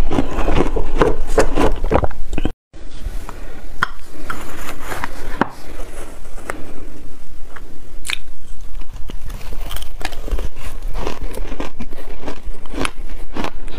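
Close-miked eating: crunching and chewing of shaved ice tipped from a glass mug, then, after a brief dropout, a metal spoon clicking and scraping against a glass mug between soft chewing.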